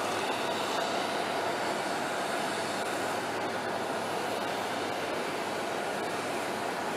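Steady, unbroken drone of a jet aircraft running while parked, with a faint steady whine in it.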